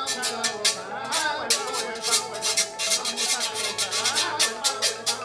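A metal güira being scraped with a stick in a quick, steady rhythm, over Latin music.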